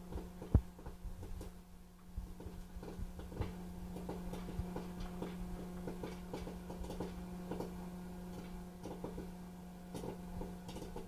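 Electric popcorn maker running with a steady motor hum, with many light, irregular clicks and pops from the kernels throughout.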